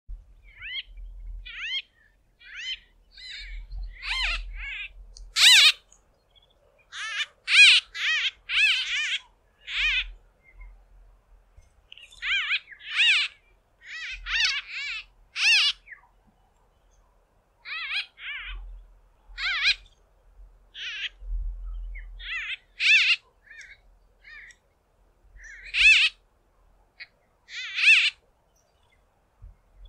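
A small flock of white-fronted bee-eaters calling: short, very nasal calls that sound almost like a squeaky toy, repeated irregularly throughout, often in quick runs of two to four.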